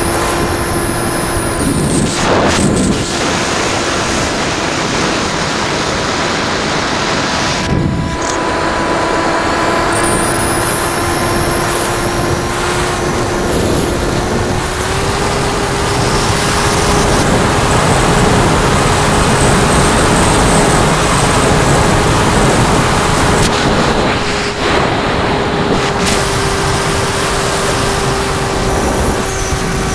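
Motor and propeller of a radio-controlled FPV model airplane running steadily, heard close up from the plane's own camera, with wind rushing over the microphone. The motor's tone steps up slightly about halfway, and it gets louder for several seconds after that.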